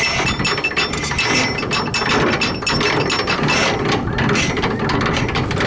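A hand winch on a Thames sailing barge being wound to lift the leeboard after tacking, its ratchet pawl clicking rapidly and steadily.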